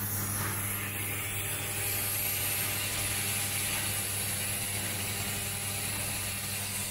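Automatic assembly machine running: the steady buzz of its vibratory sorting bowl feeders with a continuous mechanical rattle of small plastic parts being fed.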